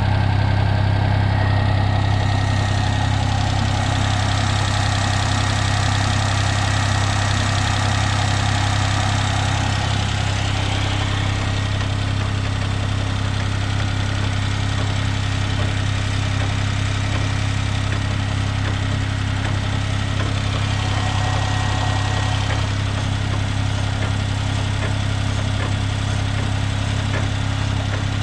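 Daihatsu Esse kei car's engine idling steadily, a constant low hum.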